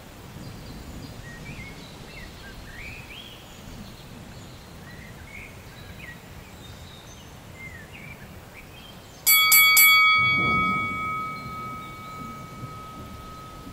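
Outdoor ambience of birds chirping over a low rumble. About nine seconds in, a bell-like chime is struck three times in quick succession and rings on, fading slowly, as a low rumble swells beneath it.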